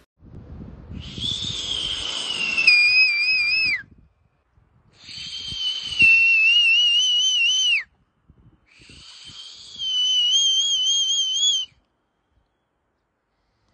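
A whistle blown three times, each blast about three seconds long and breathy, with a wavering pitch that dips as it cuts off.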